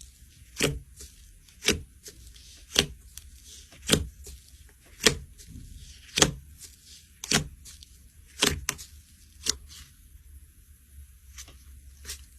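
Slime being worked by hand, giving a short, sharp pop about once a second, which thins out and turns fainter in the last few seconds.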